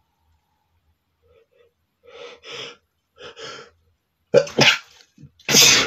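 A man sneezing: two gasping in-breaths build up about two seconds in, then a quick double sneeze comes about four and a half seconds in and another loud sneeze near the end.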